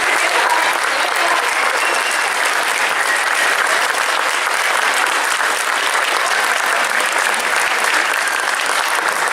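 An audience applauding steadily, a dense sound of many hands clapping, with a few voices among it.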